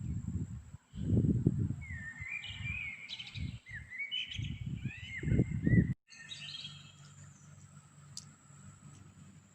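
Small birds chirping in short calls with falling notes, over loud low rumbling bursts on the microphone. The sound drops out for an instant about six seconds in, after which the chirps go on more faintly over a low hum.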